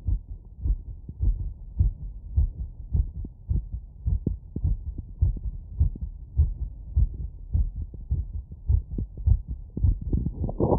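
Human heartbeat heard through a wireless electronic stethoscope on the chest after a run: a steady series of short, low, muffled beats. Right at the end a louder burst of rubbing noise starts.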